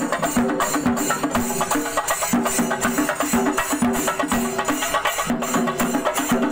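Festival procession music: fast, dense drumming with a short pitched phrase repeating over and over.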